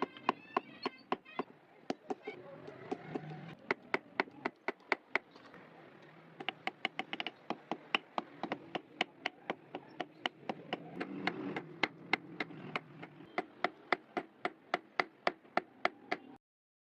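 Hammer blows on steel being forged from a bearing, struck in quick runs of about three a second with short pauses between runs. The hammering cuts off abruptly near the end.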